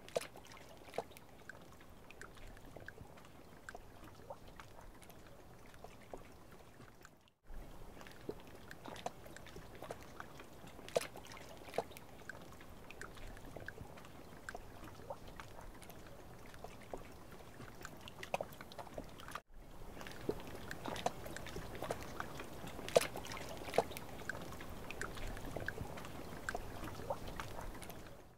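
Quiet marsh-water ambience with scattered small drips and light splashes of water, as from paddles and wet fishing nets being handled from small boats. The sound briefly cuts out twice, and the drips come more often in the later part.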